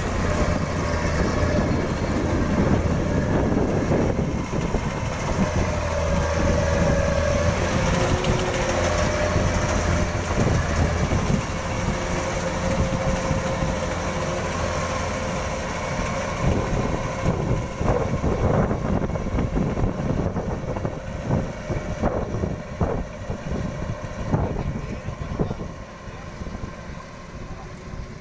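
Kubota DC-93 combine harvester running: a steady diesel engine hum with a whine from the machinery over it. From about halfway through, sharp clatters and knocks come in while the hum eases off a little.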